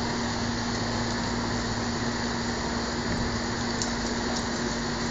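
Steady machine hum: a constant low tone over an even rushing noise, with a few faint high clicks in the second half.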